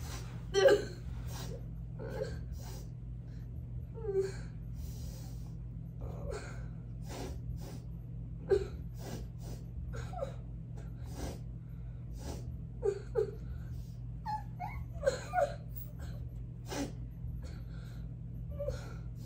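Cavapoo puppy whining and whimpering in short, repeated cries, a few each second at times, as she tries to get to a person's face. The whining is eager rather than stressed.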